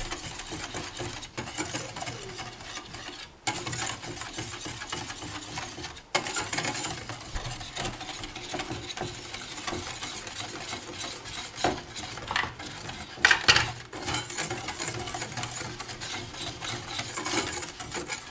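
Metal wire whisk stirring a dry powder mix of baking soda, citric acid and cornstarch in a bowl: a continuous gritty scraping and rustling, with a couple of sharper clinks past the middle.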